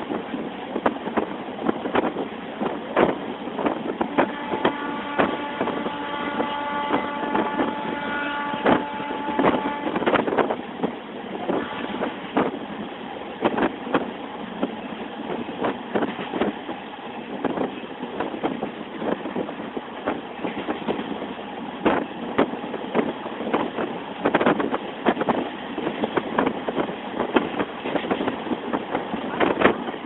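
Diesel-electric multiple unit (DEMU) train running, its wheels clattering irregularly over the rails. About four seconds in, a train horn sounds one steady note for roughly six seconds.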